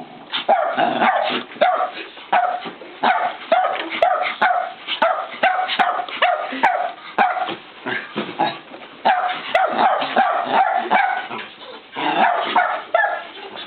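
A dog barking over and over in a fast, steady string, about two barks a second.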